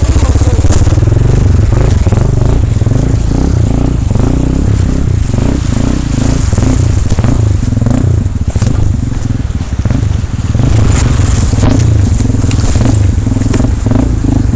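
KTM 450 single-cylinder four-stroke dirt bike engine running at low revs, its pitch wavering, with scattered short knocks and scrapes.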